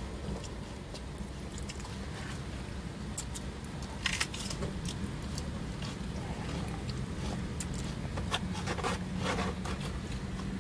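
A plastic fork scraping and clicking in a styrofoam takeout box, with close-up chewing, over a steady low hum. The loudest scrapes come about four seconds in and again near the end.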